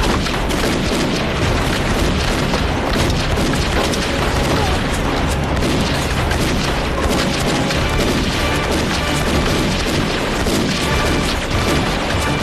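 Battle sound effects of explosions and gunfire, a continuous dense din, mixed with background music.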